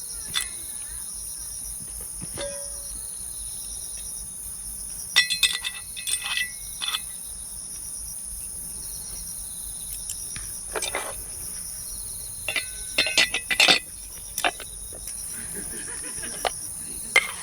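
A steady, high-pitched chorus of insects, crickets among them. It is broken by scattered sharp clinks and clicks, in clusters about five seconds in, again around eleven to fourteen seconds, and once near the end.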